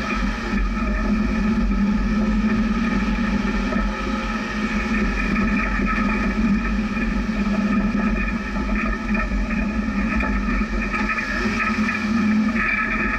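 Jeep's engine and drivetrain running steadily as it drives slowly over a dirt trail.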